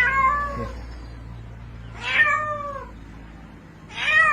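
A cat meowing loudly in distress as it calls for help from the water: three long meows about two seconds apart, each falling in pitch.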